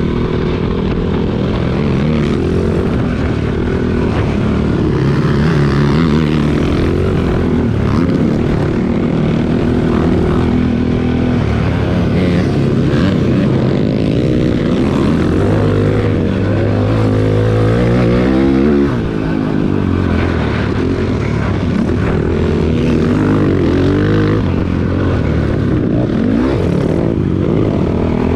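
Cannondale quad's single-cylinder four-stroke engine under way on a dirt track, revving up and down as the throttle is worked, with a brief lift off the throttle about two-thirds of the way through.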